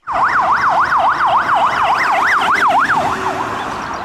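Police van siren on a fast yelp, the pitch sweeping up and down about four times a second, fading toward the end, with street traffic noise beneath.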